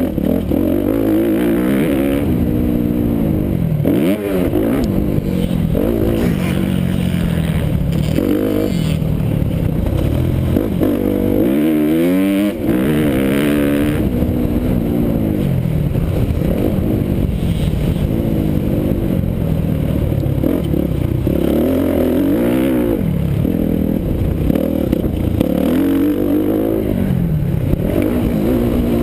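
Dirt bike engine revving hard and dropping back over and over as the rider accelerates, shifts and rolls off the throttle around a motocross track, heard up close from on the bike. There is a long rising rev about twelve seconds in.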